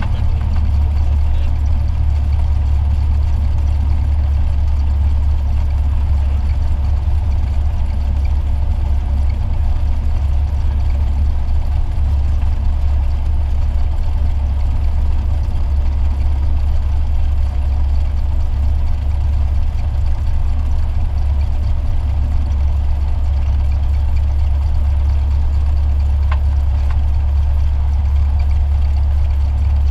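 Single-engine light plane's piston engine and propeller running at low taxi power, a steady low drone heard from inside the cabin.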